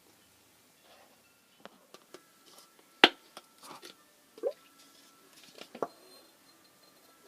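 Handling of slime-making supplies, ASMR-style: scattered small taps and clicks with some soft squishing, and one sharp click about three seconds in.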